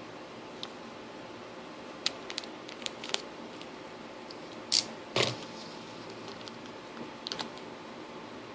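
Scattered small clicks and snips of hand cutting and handling while a small incision is made, with two louder sharp snaps about halfway through.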